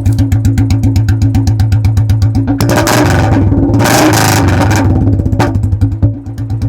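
Royal Enfield Classic 350 twin-spark single-cylinder engine idling with an even thump from its exhaust. About two and a half seconds in it is revved at half throttle for about three seconds, then drops back to idle.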